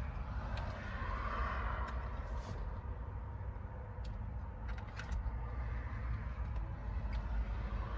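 Scattered light clicks and taps from unclipping the airbag module from a steering wheel, over a steady low background rumble.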